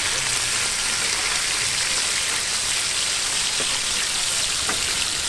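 Spice-coated whole mackerel shallow-frying in oil on a large flat iron hot plate: a steady, loud sizzle, with a few light taps from the spatula turning the fish.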